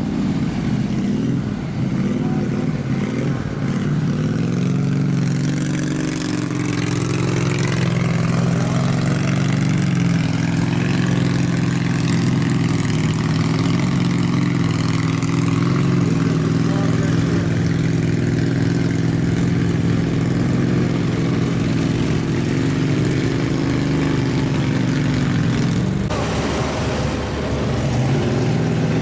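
Small engine of an amphibious ATV running under load through mud, its pitch climbing over the first few seconds and then holding steady. The sound changes abruptly a few seconds before the end.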